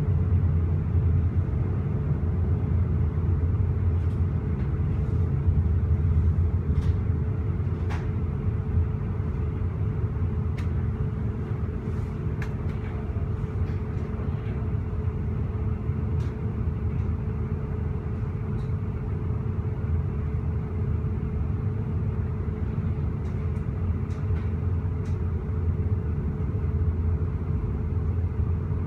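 Inside a moving railway passenger coach: the steady rumble of the train running along the track, with a steady hum and a few faint ticks.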